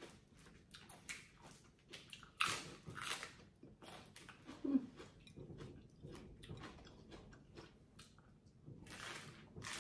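A person eating pho noodle soup: biting and chewing in short irregular strokes, with louder eating noises about two and a half seconds in and again near the end.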